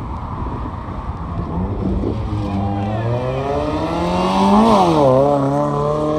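Sports car engine accelerating past, its pitch climbing steadily to a peak about four and a half seconds in, then dropping sharply and running on at a steady pitch.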